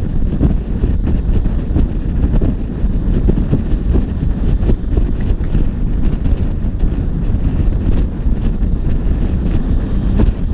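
Heavy wind buffeting on the microphone from a motorcycle cruising at steady road speed, with the Yamaha XSR900's three-cylinder engine running underneath it.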